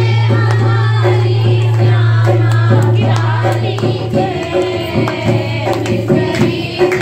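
Women singing a Hindi devotional bhajan together, led into a microphone, with hand claps and percussion keeping the beat. About four seconds in, the beat becomes a pronounced pulse.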